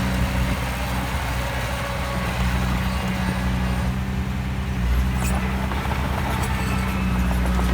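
Heavy diesel engine of earthmoving machinery running at a steady speed, its low note growing louder a little under five seconds in.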